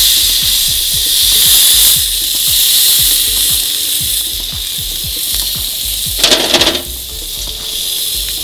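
Ribeye steak searing on hot grill grates over charcoal, a steady sizzle right after it is flipped onto the fresh side. A brief louder clatter breaks in about six seconds in.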